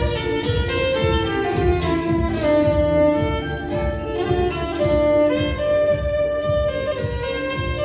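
Violin playing a melody with long held notes over a backing track with a steady beat.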